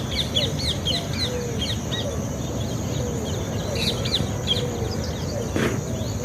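Birds chirping: quick, high, short chirps, several a second, with some lower curved calls, over a steady low background rumble. A single sharp knock comes near the end.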